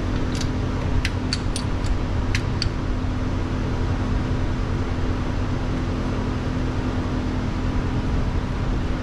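Steady machine hum with a constant low tone, and a handful of light metallic clinks of hand tools in the first few seconds.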